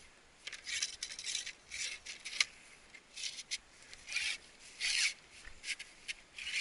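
Tall marsh grass and clothing swishing in short, irregular rustles as someone walks through it.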